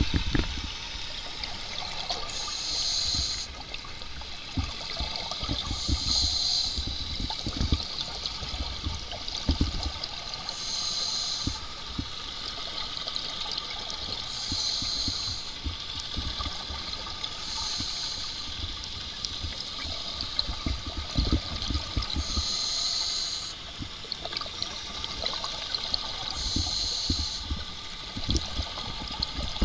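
Scuba regulator breathing recorded underwater: a short hiss of inhalation about every four seconds, with low, rumbling exhaled bubbles in between.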